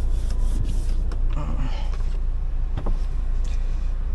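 Inside a car cabin, light knocks and rubbing as a temporary licence plate is handled against the windscreen, over a steady low rumble.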